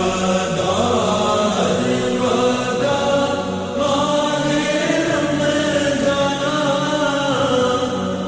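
Slowed and reverbed naat: a voice chanting a drawn-out, sliding devotional melody over a steady low drone.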